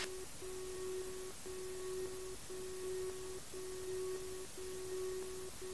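A low electronic tone in the cockpit audio, repeating about once a second as long notes with short breaks, over a steady hiss of cockpit noise.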